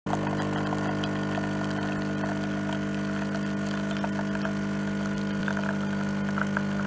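Coffee machine's pump running with a steady hum while it dispenses coffee into a mug.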